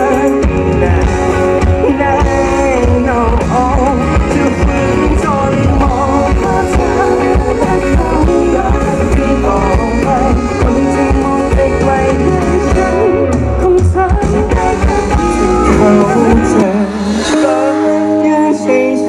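Live band playing a pop-rock song, a male vocalist singing over drums, bass, electric guitars, keyboard and saxophone. About three seconds before the end the drums and bass drop out, leaving held chords.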